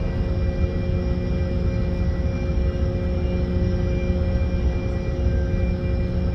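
Ship's machinery running steadily: a heavy low rumble with a constant droning hum over it.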